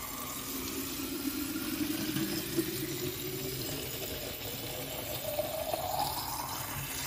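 Filtered water running from a filter tap into a plastic bottle, a steady splashing stream whose pitch slowly rises as the bottle fills. The flow cuts off near the end.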